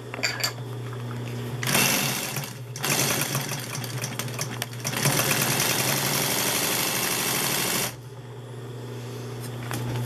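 Consew 206RB walking-foot industrial sewing machine stitching a test seam through a strip of material: a short run of about a second, a brief pause, then about five seconds of steady stitching that stops abruptly near the end. A steady low hum sits underneath.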